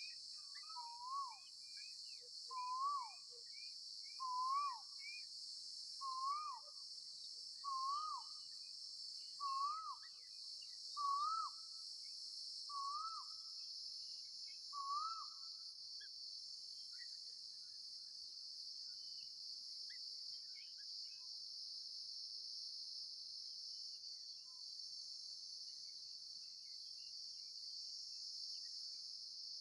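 A bird calls a short swooping whistle, rising then dropping, about every second and a half to two seconds, some nine times, then falls silent about halfway through. A steady high insect hiss runs beneath it.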